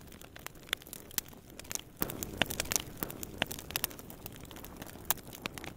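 Irregular crackling with scattered sharp pops over a low rumbling hiss; it grows louder and denser about two seconds in.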